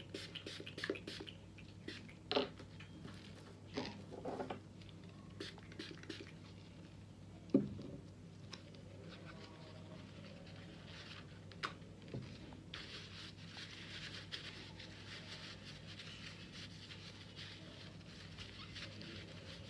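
Faint clicks and taps of plastic utensils being handled and cleaned with rubbing alcohol, with one sharper knock about eight seconds in. Through the second half, a soft steady rustle of a paper towel wiping them.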